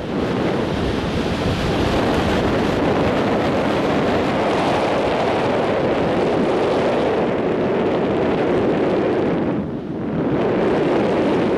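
Wind buffeting the camera microphone during a tandem parachute descent under an open canopy: a steady rushing noise that dips briefly near the end.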